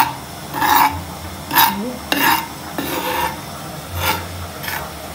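A metal spoon stirring and scraping dry wheat flour around a pan, in about seven short strokes, as the flour is dry-toasted brown.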